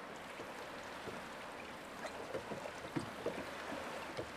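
Small waves lapping softly against the hull of a small open boat, with little splashes coming more often after about two seconds, over a faint steady hiss of the sea.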